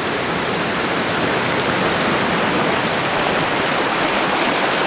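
Small woodland waterfall on a creek running high after heavy rain: a steady rush of white water.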